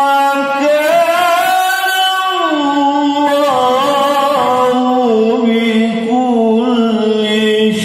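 A male qari reciting the Quran in melodic tilawah style through a PA loudspeaker. A single voice holds long, ornamented notes that slide and waver in pitch, moving higher in the first two seconds and settling lower from about halfway through.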